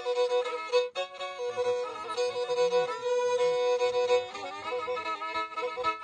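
Black Sea kemençe, a small upright bowed fiddle, playing a folk melody, with a long held note in the middle.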